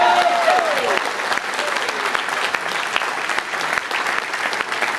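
Audience applauding, many hands clapping at once, with a voice heard briefly over it at the start.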